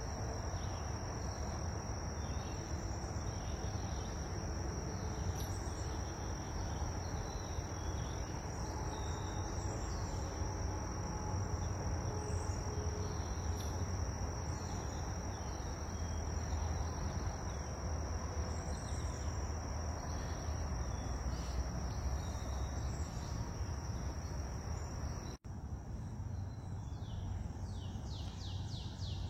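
Insects trilling in one steady, unbroken high-pitched note, with scattered bird chirps over it and a low background rumble. The sound cuts out for an instant near the end, then a quick run of bird chirps follows.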